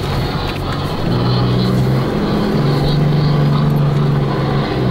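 Off-road vehicle engine heard from inside the cab, working hard under load as it climbs a sand dune. The engine note rises about a second in, dips briefly midway, then holds high and eases off near the end.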